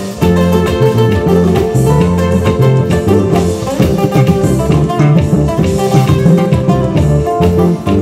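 Live band music led by a plucked electro-acoustic guitar, over bass guitar and a drum kit.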